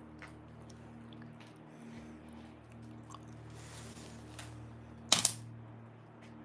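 Metal tongs working in a wood-fired grill, with faint small crackles and clicks. A sharp double clack about five seconds in is the loudest sound.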